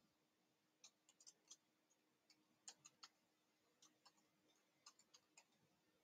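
Near silence with faint, irregular computer keyboard keystrokes as text is typed.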